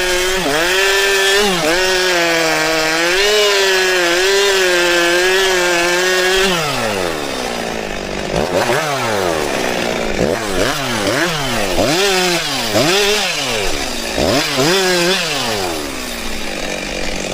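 Chainsaw running at full speed with its pitch wavering, as if cutting under load, then winding down after about six seconds. It is then revved in a quick series of short bursts, each rising and falling, before winding down again near the end.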